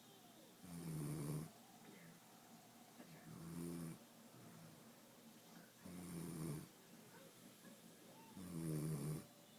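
A woman snoring in her sleep with low, man-like snores: four snores about two and a half seconds apart, each lasting just under a second.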